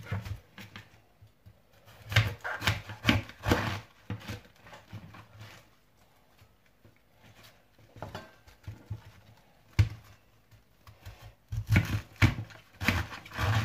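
Chef's knife cutting lengthwise through a head of napa cabbage on a plastic cutting board: crisp crunching as the blade goes through the leaves and core, in two bouts, with a single sharp knock about ten seconds in.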